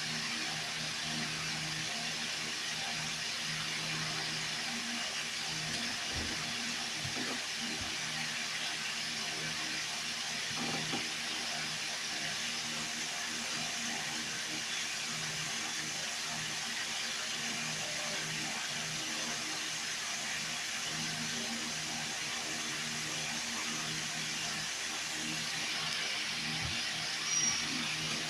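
Aquarium air pump and filter running: a steady watery hiss with a low hum underneath that swells and fades.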